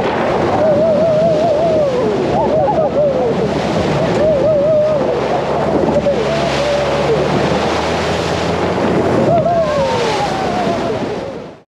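An open off-road jeep splashing through a shallow river: loud rushing water spray and wind on the microphone over the low engine, with a wavering voice-like line, singing or whooping, running over it. It fades out sharply near the end.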